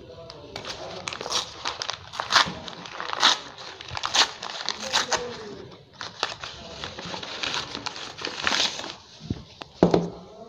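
Brown paper courier packet being torn open and crumpled by hand: irregular crinkling and rustling with sharp tearing rips.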